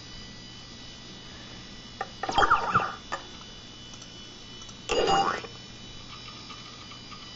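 Steady electrical hum from an old Mac computer and its monitor, with faint high tones. Two short bursts of pitched sound break in, about two seconds in and again about five seconds in, as Kid Pix Deluxe 3 loads and its name screen comes up.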